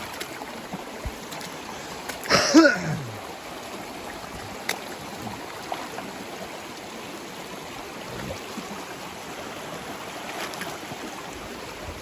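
Steady rush of a flowing stream. About two seconds in, a man gives one short falling 'whoo' yell, louder than the water.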